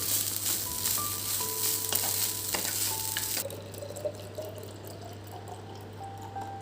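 A steady sizzling hiss, like food frying in a hot pan, over soft background music. The sizzle cuts off suddenly about three and a half seconds in, leaving the music and a few faint ticks.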